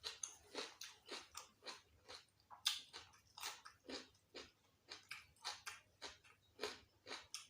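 A person chewing food close to the microphone, in rapid, even chews at about three a second.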